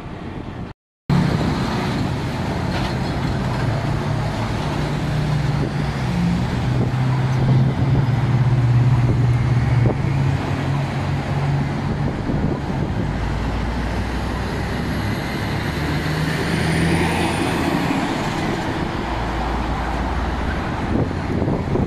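Busy road traffic at a city intersection: car and heavy truck engines and tyre noise. A steady low diesel-engine drone runs through the first half, then a deeper rumble as a container truck passes near the end. The sound cuts out briefly about a second in.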